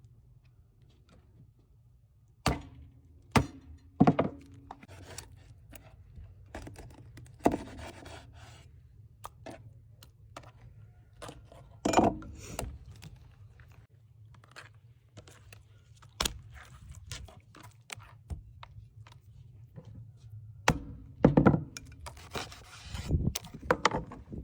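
Irregular knife thunks and scrapes on a cutting board as a large fish is cut up, with the heaviest blows near the end. Under them runs a steady low hum.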